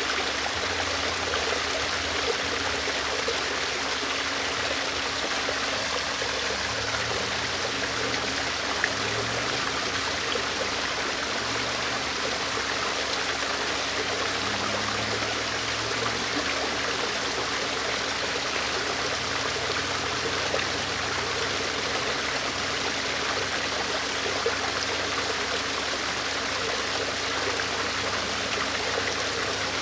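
Waterfall running steadily, an even rush of falling water, with a few faint ticks.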